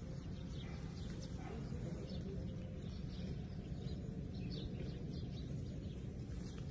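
Steady low rumble of outdoor background noise, with a few faint, short high chirps scattered through.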